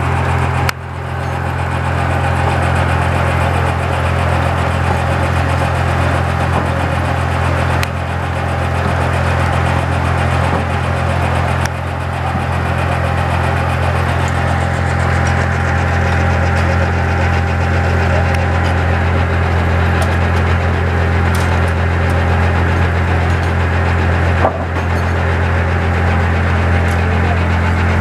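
Diesel engine driving an old circular sawmill, running steadily at a low, even drone, with a few sharp clicks and knocks from the mill over it.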